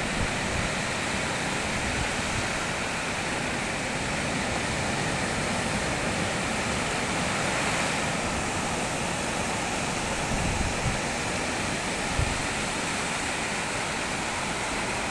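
Sea surf making a steady, even wash, with wind rumbling on the microphone.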